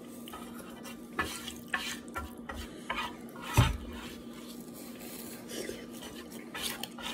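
Wooden chopsticks scraping and tapping against a nonstick frying pan, picking up leftover bits of noodles, with one louder knock about three and a half seconds in, over a faint low hum.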